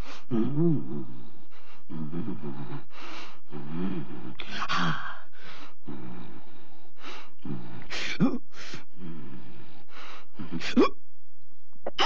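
A woman's voice doing the possessed girl's wordless demon sounds: a rapid run of throaty, growling vocal bursts and harsh gasping breaths. Two short cries rise sharply in pitch near the end.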